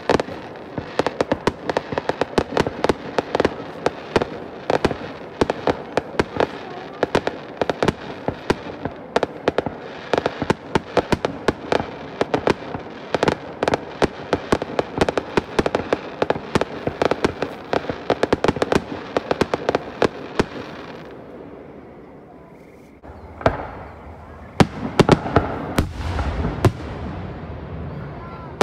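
Aerial fireworks display: a dense run of sharp cracks and pops, many a second, that eases off about three-quarters of the way through. Then comes a deep rumble and several louder booms near the end.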